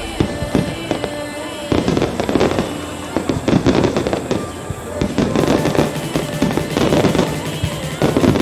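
Aerial fireworks shells bursting overhead: a dense run of bangs and crackles that thickens from about two seconds in, with music playing underneath.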